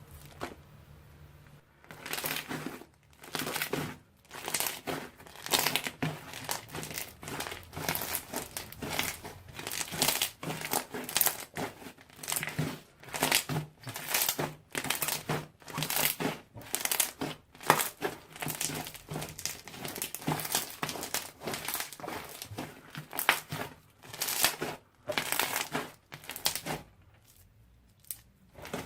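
Slime being squeezed and worked by hand, giving crinkly, crackling sounds in quick irregular bursts that start about two seconds in and stop a couple of seconds before the end.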